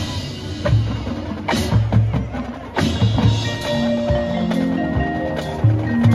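Marching band percussion playing alone just after the full band's chord cuts off: sharp woodblock-like clicks and low drum hits, with front-ensemble mallet instruments holding ringing notes from about halfway in.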